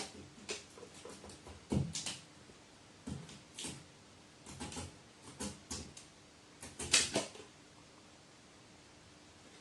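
A series of irregular light taps and knocks, about a dozen, loudest about two seconds in and again around seven seconds in.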